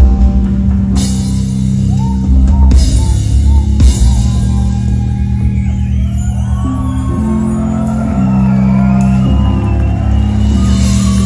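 Live band music: a drum kit with cymbal crashes in the first few seconds over a heavy, sustained synth bass, then keyboard lead lines that slide up and down in pitch over a held low chord.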